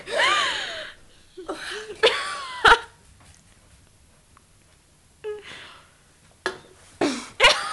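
A girl straining to force out a burp: short throaty vocal bursts and gulps in a few clusters, with a quiet gap of about two seconds in the middle. The attempts do not produce a real burp.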